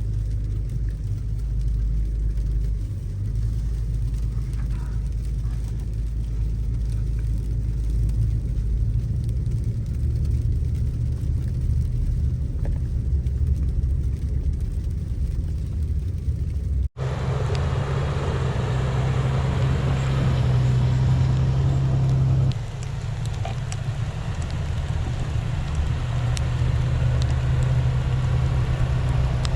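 Vehicle engine and drivetrain running under way, a steady low drone. About 17 s in there is an abrupt cut, after which more hiss is heard over the drone.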